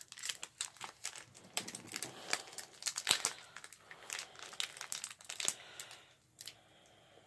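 Foil wrapper of a Pokémon card booster pack crinkling and tearing as it is worked open by hand: a quick run of crackles that thins out to a few faint clicks after about six seconds.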